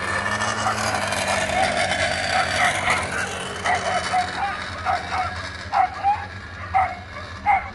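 Dogs barking in short, high yips, about two a second from a few seconds in, over a steady background hubbub.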